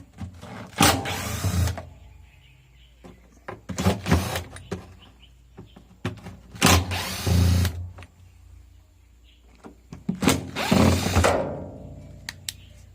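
Cordless drill-driver backing screws out of a washing machine's casing. It runs in four short spells of about a second each, with pauses and small clicks between them.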